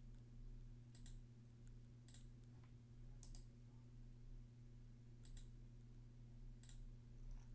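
Faint computer mouse clicks, some single and some in quick pairs, spaced a second or more apart over a low steady hum.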